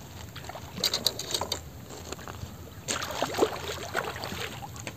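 A few sharp clicks about a second in, then a large mirror carp splashing in the shallows at the shore from about three seconds in as it is landed by hand.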